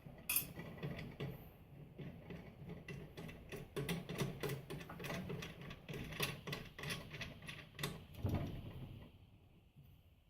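Irregular clicking and rattling of tools and metal parts being worked on a small bandsaw, with a heavier knock about eight seconds in.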